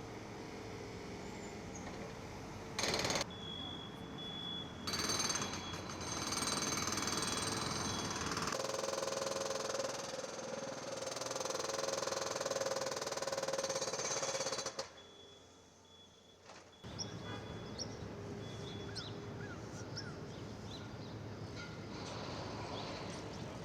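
Street construction equipment working on the pavement: a steady, jackhammer-like machine noise that grows louder about five seconds in, drops out abruptly near the middle and comes back two seconds later.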